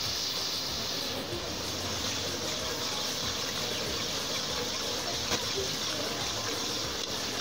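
Steady rushing hiss of a large aluminium pot of qeema simmering on a gas burner while a metal ladle stirs it, with one light knock about five seconds in.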